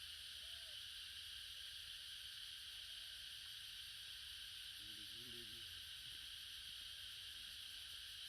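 Steady high-pitched hiss of an insect chorus, with a short faint voice-like call about five seconds in.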